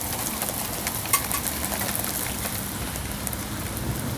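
Steady rain falling, an even hiss with scattered sharp drop taps, one louder tap about a second in.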